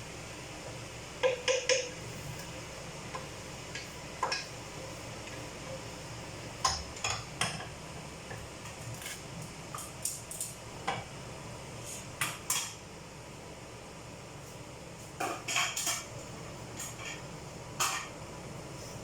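A utensil clinking and scraping against a cooking pot, in scattered groups of a few sharp strikes, over a steady low hiss.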